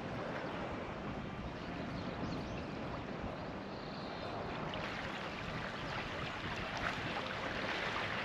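Small waves lapping at a sandy shoreline, with wind on the microphone, making a steady wash of noise.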